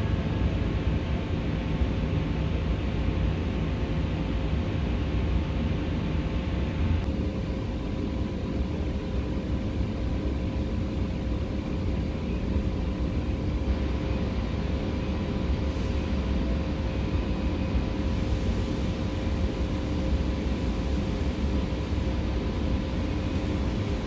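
Steady low rumble and hum of background machinery noise with faint steady tones; the higher hiss drops away about seven seconds in.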